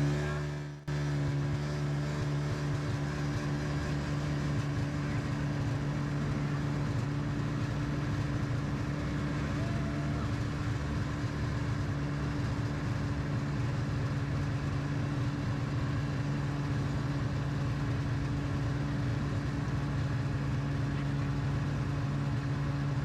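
A vehicle engine running steadily at a constant pitch. It drops out briefly about a second in.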